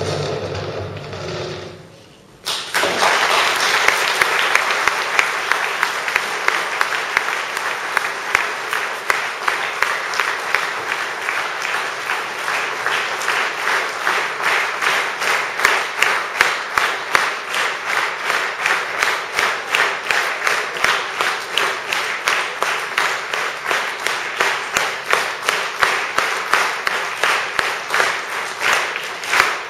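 The last sung note fades out. About two and a half seconds in, an audience starts applauding, and the applause settles into rhythmic clapping in unison with an even beat.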